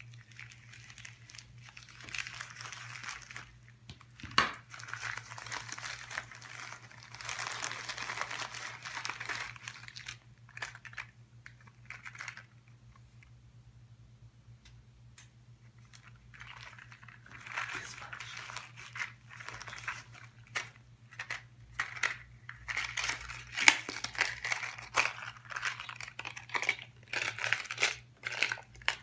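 Plastic packaging crinkling and rustling as hands open a poly mailer envelope and then the clear plastic bag and card of a swimbait lure. The rustling comes in irregular bursts with a quiet stretch in the middle and is densest near the end, with a sharp click about four seconds in, over a faint steady low hum.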